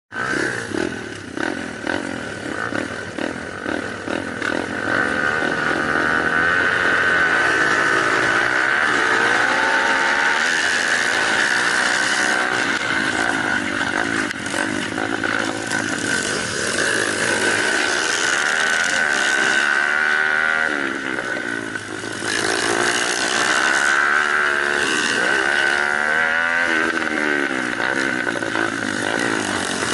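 Small off-road motorcycle engines revving, their pitch rising and falling again and again over a steady high whine.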